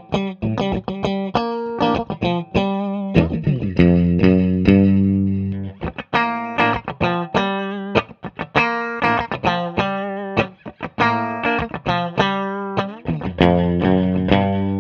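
Electric guitar, a Stratocaster with Porter Vintage Custom single-coil pickups, played on a clean tone: a bluesy run of single notes and chord stabs with frequent sharp attacks, ending on a chord left to ring.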